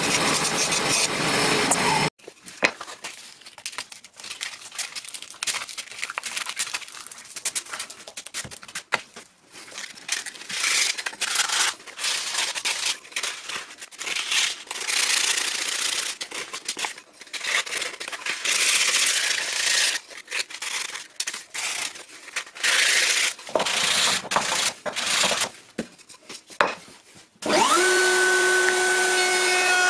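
A band saw cuts through wood for about two seconds. Then a sanding sponge is rubbed back and forth over a wooden strip in uneven strokes with short pauses. Near the end a table-mounted router motor spins up and settles into a steady high whine.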